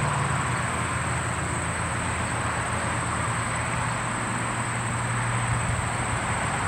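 Steady background ambience: a constant low mechanical hum under a thin, unbroken high-pitched whine.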